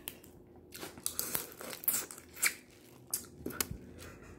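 Boiled crawfish being peeled by hand: shells cracking and snapping in a run of irregular sharp crackles.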